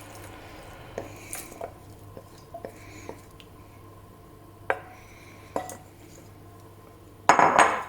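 Kitchen utensils knocking and clinking against pots and dishes as a cooked onion and tomato mixture is moved into a blender: several separate light taps, then a louder clatter lasting about half a second near the end.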